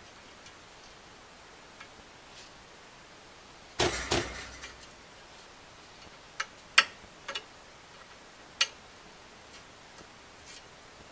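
Sharp metallic clicks of a screwdriver working steel needle rollers into the needle bearing bore of a Polaris Outlaw 525 rear A-arm. A quick cluster of knocks about four seconds in is the loudest, followed by about five single clicks over the next few seconds.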